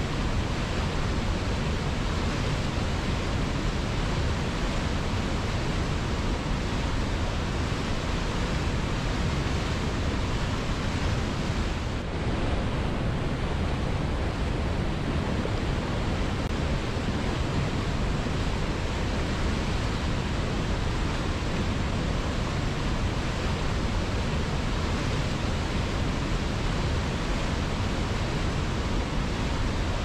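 Mountain river rushing in whitewater rapids over boulders below a waterfall: a steady, dense sound of churning water.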